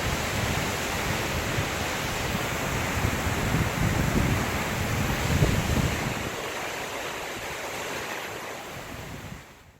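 Waterfall rushing steadily, with wind buffeting the microphone in gusts for the first six seconds; the sound eases and then fades out just before the end.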